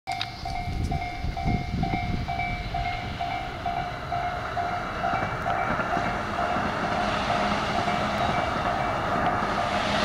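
Japanese level-crossing warning bell ringing in a steady pulse, about two strikes a second, while a JR East E233-series electric commuter train runs past. The train's wheel-and-rail rumble grows louder over the second half as the cars pass close by.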